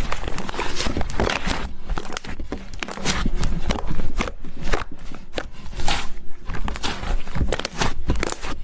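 Hands squeezing and poking slime, making a dense run of sticky pops and crackles.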